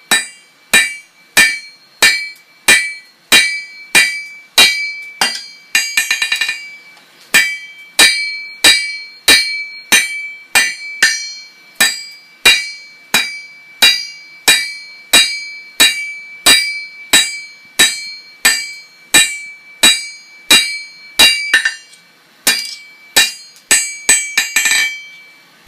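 Hammer blows on hot tool steel over an anvil, struck at a steady pace of about one and a half blows a second, each with a bright metallic ring. This is a blacksmith drawing out and shaping a flint striker. There is a brief flurry of light taps about six seconds in and a short pause near the end.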